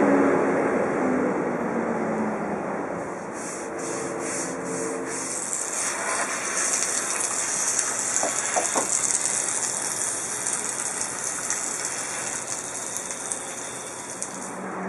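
Vacuum cleaner running with a steady rushing noise, sucking up debris. A brighter hiss comes in about three seconds in.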